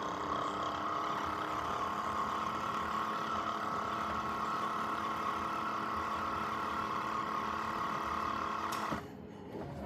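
Dreame X50 robot vacuum's mop-washing cycle in its base station: a steady motor whir with a high whine, cutting off sharply about nine seconds in.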